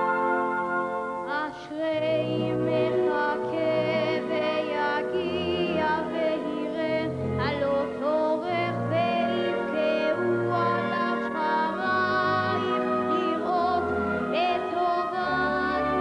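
A boy sings a Hebrew song with vibrato into a microphone, accompanied by a symphony orchestra with strings. The orchestra plays alone for about a second before the voice comes in.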